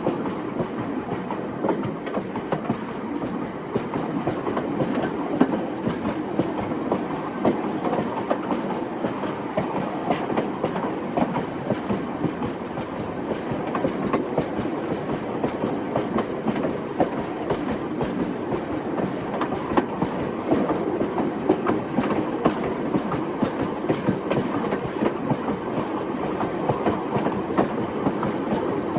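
Train running steadily along the track: a continuous rumble with many short, irregular clicks of the wheels over the rails.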